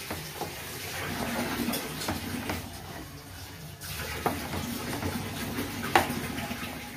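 A wooden spatula stirs a thick ground sesame-and-coconut paste in a frying pan, with a wet sizzle and bubbling. A few sharp knocks of the spatula against the pan come through, the loudest near the end.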